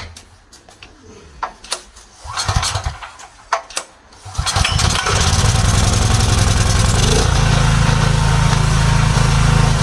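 Small petrol generator engine being hand-started with the choke closed: a few knocks and clatters from the starting, then the engine catches about four seconds in and runs steadily, its sound changing slightly a few seconds later.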